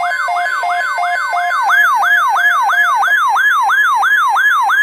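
Electronic siren sounding a fast yelp that sweeps up and down about three times a second. For the first half it is layered with a two-note hi-lo wail. It cuts off suddenly near the end.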